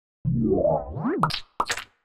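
Cartoon sound-effect logo sting: a springy boing whose pitch climbs in quick glides, jumps up and drops back, then a few sharp pops, the last and brightest about a second and a half in.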